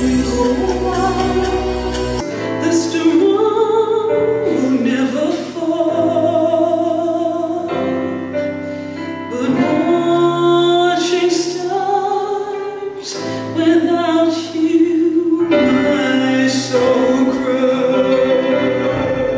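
Music with singing: long held sung notes over slowly changing chords, in a choral style.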